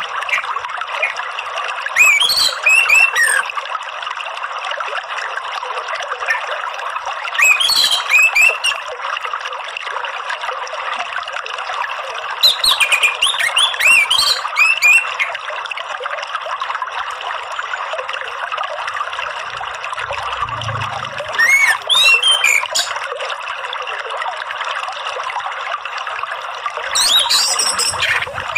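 An orange-headed thrush sings five short bursts of rapid, sliding whistled phrases, spaced a few seconds apart. A steady trickle of flowing water runs underneath.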